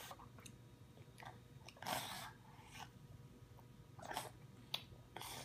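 Toddler eating soft fruit with his fingers: faint wet chewing and mouth smacks with small clicks, and a short louder noise about two seconds in.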